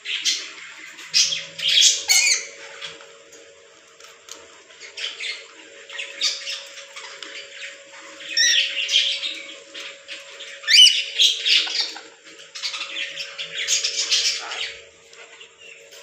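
Rainbow lorikeets squawking: harsh, high calls in bursts every second or two, with a couple of sharp rising shrieks.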